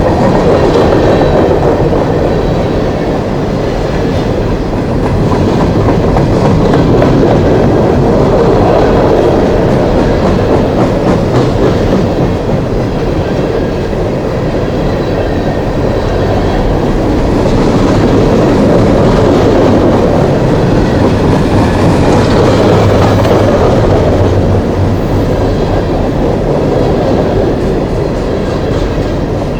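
A long coal train rolling past, its loaded hopper cars rumbling and clattering over the rail joints in a steady, loud run that swells and eases slowly.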